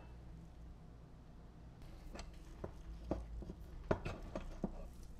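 Several light, sharp clicks and knocks of parts and hand tools being handled, about six of them in the second half, over a steady low hum.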